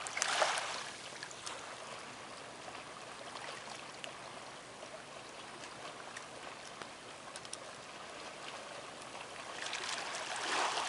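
Gentle sea water lapping at the water's edge: a steady soft wash with scattered small clicks and splashes, swelling louder just after the start and again near the end.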